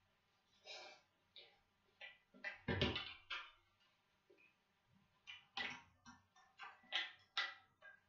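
Short slurps and mouth sounds of a person eating instant ramyeon noodles with chopsticks, a dozen or so in a row. A louder, duller knock comes about three seconds in.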